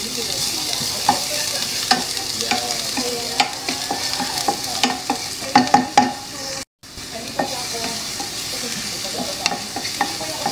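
Chopped red onion and garlic sizzling in hot oil in a stainless steel pan, with a wooden spoon stirring and scraping, knocking now and then against the pan. The sound cuts out briefly about two-thirds of the way through.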